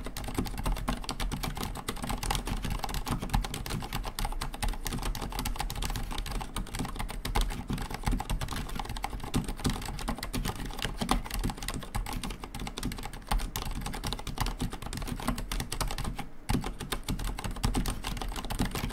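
Continuous fast typing on a Filco Majestouch Convertible 2 tenkeyless mechanical keyboard with Cherry MX Silent Red switches and ABS keycaps: rapid, muted key strokes with a brief pause about sixteen seconds in. A hollow case resonance remains in the keystrokes, which the reviewer counts as a flaw.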